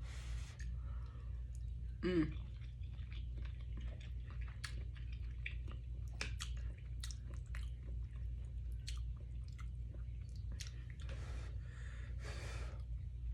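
Close-up chewing of a mouthful of food, with wet mouth clicks and smacks, over a steady low background hum. About two seconds in comes a brief falling pitched sound.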